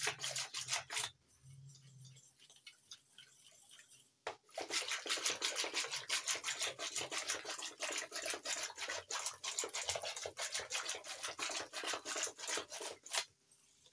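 Coiled-wire hand whisk beating yogurt and sugar in a stainless steel bowl, with rapid, even scraping and clicking strokes of wire against the steel. It pauses about a second in, starts again at about four seconds, and stops shortly before the end.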